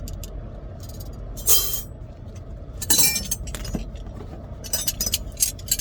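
Steel wrenches clinking together as they are handled and set down: sharp metallic clinks about a second and a half and three seconds in, then a quick run of clinks near the end.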